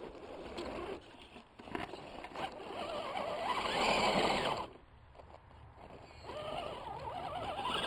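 Axial Deadbolt RC crawler's electric motor and geared drivetrain whining in bursts as it crawls up a steep dirt slope. The whine is loudest a few seconds in, drops away about five seconds in, then picks up again near the end.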